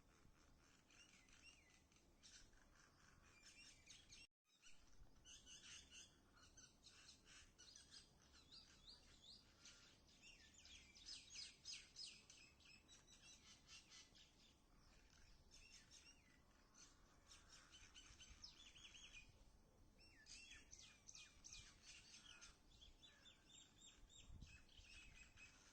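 Small birds chirping and twittering together, faint: a busy run of quick, high chirps with a brief cut-out about four seconds in.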